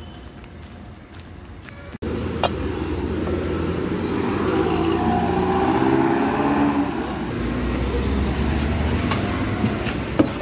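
Road traffic on a wet street, quieter for the first two seconds and then suddenly louder. A motor vehicle's engine runs close by, swelling toward the middle and easing off.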